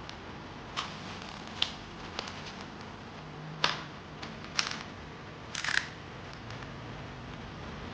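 Light clicks and snaps of hands working on a laptop's plastic case and internal parts, about eight scattered irregularly over several seconds, with a quick cluster near the end.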